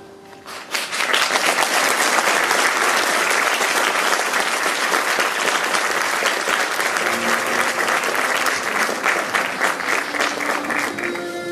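Theatre audience applauding, starting after a brief hush about a second in and holding steady, then easing off near the end as music comes back in.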